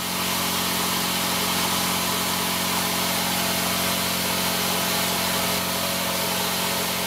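Quincy 5 HP, 60-gallon vertical electric air compressor running steadily, its pump building pressure in the tank on a recovery cycle after the pressure switch kicked it back on.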